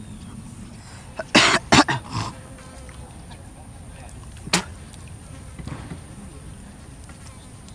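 A man coughs two or three times in quick succession close to the microphone about a second and a half in. A single short, sharp sound follows about three seconds later.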